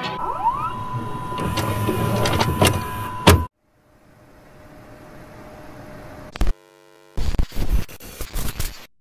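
Glitched, cut-up soundtrack: a cluttered mix with a steady high beep and sliding tones that cuts off abruptly about three and a half seconds in. Then comes a faint hiss that slowly rises, a short buzz, and choppy stop-start bursts of static.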